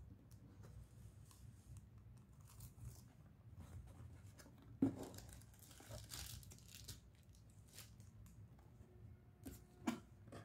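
Faint crinkling of a plastic bag and handling of a cardboard box, with one sharp knock about five seconds in and a smaller one near the end.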